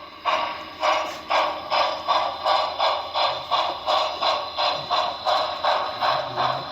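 Sampled steam-exhaust chuffing from the onboard sound system of a Broadway Limited Paragon4 HO-scale New York Central Commodore Vanderbilt 4-6-4 Hudson, a steady beat of about two and a half chuffs a second through the model's small speaker. The locomotive is pulling a heavy passenger train on a grade, and the owner suspects its wheels are slipping on smoke-fluid residue on the track.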